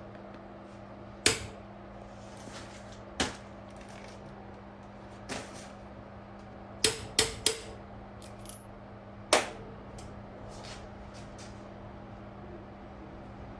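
Metal tools and small parts of a diesel injector being handled on a workbench as it is taken apart: about seven sharp metallic clicks and knocks, three in quick succession near the middle, over a steady low hum.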